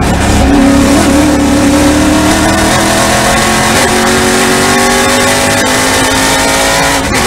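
TA2 Trans Am race car's V8 engine at full throttle, heard from inside the cockpit, its pitch rising as the car accelerates. The pitch drops and climbs again about halfway through, and there is a brief dip near the end, as it shifts up through the gears.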